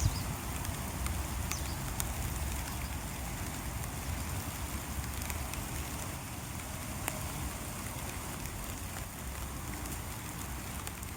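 Light rain falling steadily, an even hiss with scattered sharp taps of single drops, over a low rumble.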